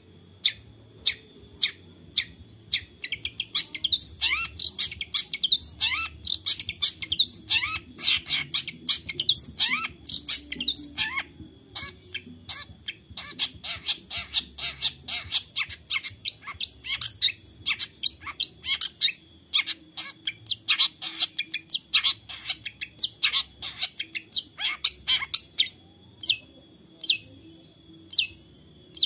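Long-tailed shrike (cendet) calling: sharp, single 'toet' notes about one to two a second, breaking twice into long runs of fast, varied chattering song (the 'isian' filler of other birds' phrases), then back to spaced single 'toet' notes near the end.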